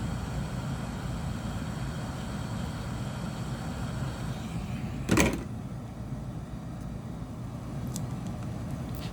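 Hot air gun blowing steadily to soften adhesive, with a sharp clack about five seconds in, after which the hiss falls away; a couple of faint ticks follow.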